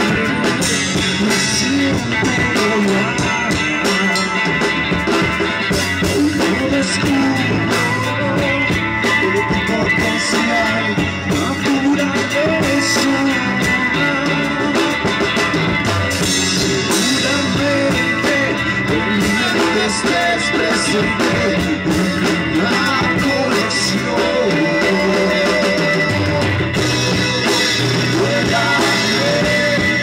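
Rock band playing live, with electric guitars and a drum kit going steadily throughout.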